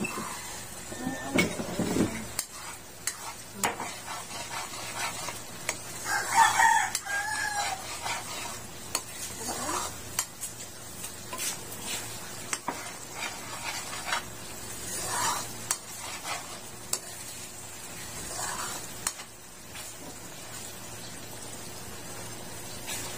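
Spoon stirring and scraping through a pan of thick, bubbling coconut milk and sugar syrup (latik), with irregular clicks of the spoon against the aluminium pan and a soft sizzle of the boiling syrup. A rooster crows in the background about six seconds in.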